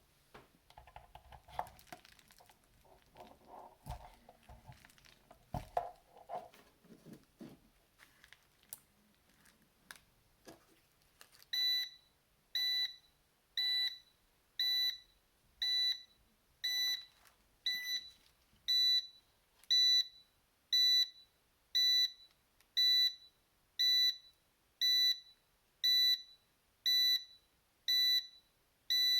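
Handling and rustling noises with a few taps, then the ZFX-W9002 digital incubator controller's buzzer starts beeping a little under halfway through: short beeps of one steady pitch, about once a second, repeating without a break.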